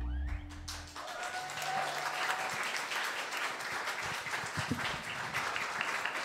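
A small seated audience applauding, with steady clapping. The last held notes of the song's backing music die away in the first second.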